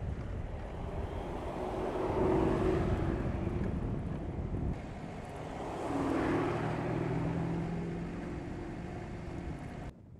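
Mercedes-Benz S500 coupes' twin-turbo V8 engines and tyres driving past at speed, the engine note and road noise swelling and fading twice. The sound cuts off suddenly near the middle and again at the end.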